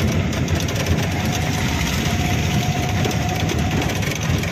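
Auto-rickshaw engine running steadily as it drives along, heard from inside the open passenger cabin.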